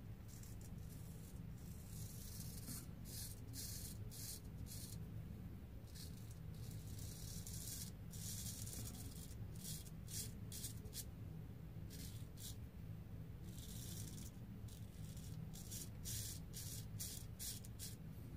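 Straight razor scraping through lathered beard stubble in many short, scratchy strokes, some in quick runs and some longer, over a steady low hum.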